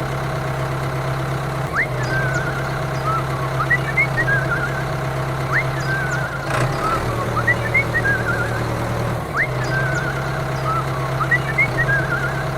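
Steady low engine hum, as of a small tractor idling. Over it, a short high chirping, warbling phrase repeats about every four seconds.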